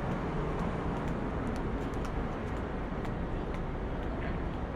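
City side-street traffic: a steady low rumble of passing vehicles, with a few faint clicks.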